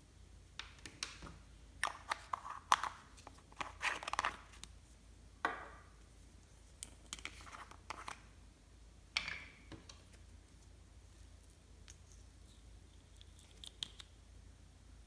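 Clear slime being worked by hand, giving irregular crackles and tearing, squelching sounds as it is stretched, folded and pressed. These come thickly in the first ten seconds and only now and then after.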